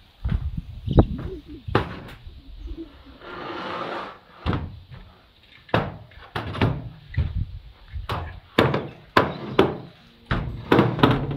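Aluminium roof ladder with rollers knocking, clanking and scraping against corrugated iron roof sheeting as it is carried onto the roof and set down, a run of sharp knocks and thuds with a longer scrape about three seconds in.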